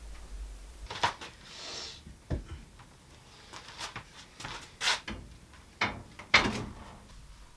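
About half a dozen sharp knocks and clunks, unevenly spaced, with a short scraping noise early on; the loudest knock comes about six and a half seconds in.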